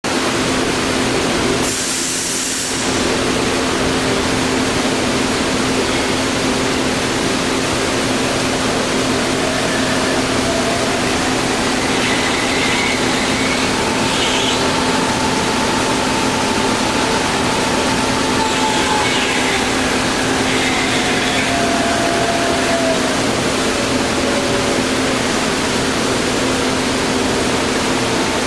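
Clausing 2276 variable-speed floor drill press running, a steady mechanical hum over a broad hiss. About ten seconds in a whine rises in pitch, holds, then falls back after about twenty seconds.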